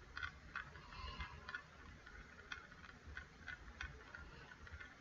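Faint, irregular light clicks, a few a second, over a low steady hum.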